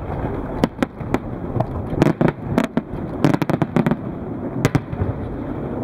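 Fireworks display: aerial shells bursting in a run of sharp bangs and cracks at irregular intervals, with a quick cluster of reports a little past the middle, over a continuous low rumble.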